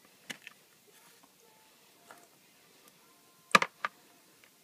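A few scattered sharp clicks and taps, with a louder quick cluster of three about three and a half seconds in, as the oil drain bolt of a Yamaha Moto-4 is worked loose by hand over the drain bucket.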